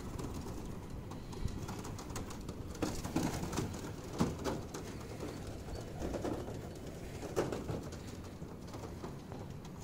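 Feral pigeons arriving and landing, with sharp wingbeats from about three seconds in and again near the middle, and some cooing.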